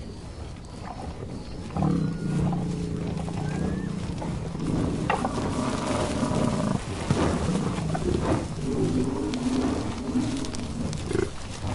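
Bison grunting: low, drawn-out grunts from the herd, several overlapping and recurring, starting about two seconds in.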